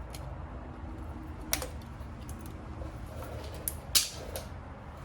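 Two sharp clicks about two and a half seconds apart, the second louder, over a low steady hum, as a stick-on wheel weight is pried off a motorcycle rim during balancing.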